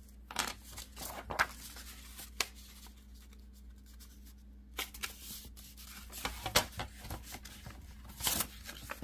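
A sheet of paper being handled and folded along a freshly scored line on a plastic scoring board: scattered short rustles and scrapes, the longest near the end.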